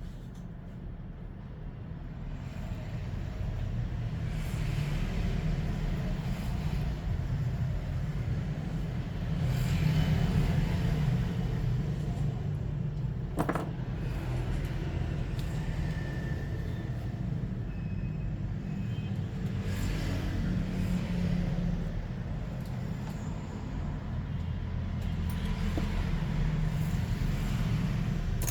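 Low rumble of road traffic that swells and fades several times, with one sharp click about halfway through.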